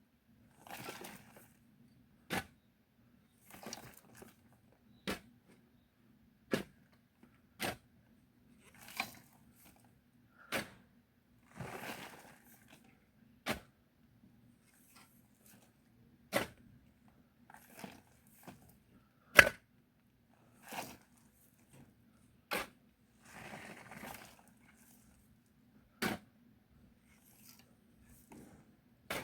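A digging tool repeatedly striking hard murram soil with sharp chops every second or two, between short scraping swishes of loose soil being dug up and shifted; the loudest strike comes a little past the middle.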